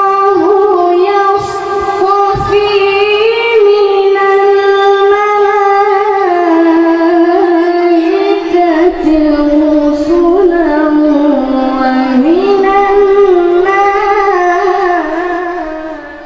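A boy qari's voice reciting the Quran in melodic tilawah style into a microphone: long held notes with ornamented turns, one phrase that dies away near the end.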